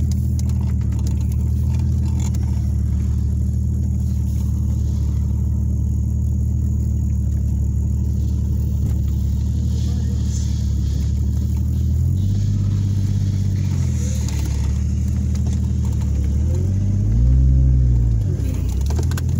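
Engine of an off-road vehicle, heard from inside the cab, running steadily at low revs as it creeps over a muddy trail. It revs up and back down twice, about two-thirds of the way in and again near the end, the second time louder.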